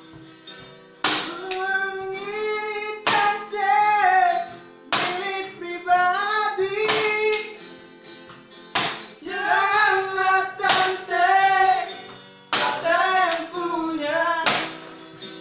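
Music with a sung melody over sustained instrument tones, punctuated by a sharp percussive hit about every two seconds.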